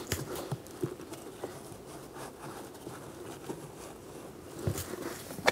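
Faint scattered taps and scraping as a cabin air filter is slid up into its plastic HVAC housing by a gloved hand.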